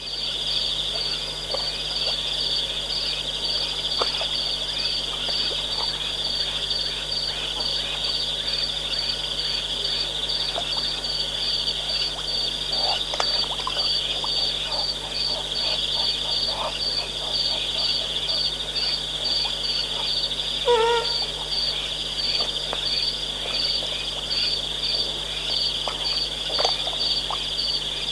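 Night chorus of crickets and other insects: a steady high trill, with a second insect chirping evenly about twice a second. About three-quarters of the way through, a single short call falls steeply in pitch.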